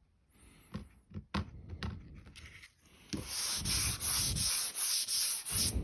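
Hand sanding of epoxy primer on a car panel with a homemade T-grip flexible sanding block, the sandpaper clogging with the primer. A few light knocks at first, then steady rhythmic back-and-forth strokes from about three seconds in.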